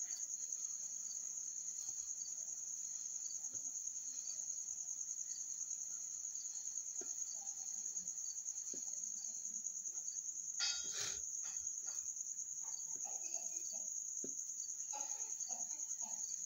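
Steady high-pitched chirring of crickets in the background, with a brief faint clatter about eleven seconds in.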